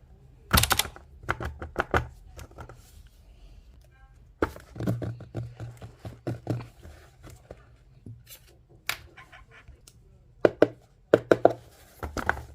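A package being handled and opened by hand: clusters of sharp taps, clicks and knocks with some rustling, busiest near the start, in the middle and near the end.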